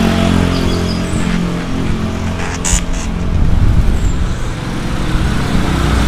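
A motor vehicle engine running steadily close by, with a couple of brief knocks near the middle.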